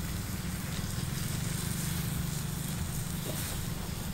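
Small wood fire burning under a whole chicken on a spit, a steady hiss over a continuous low rumble.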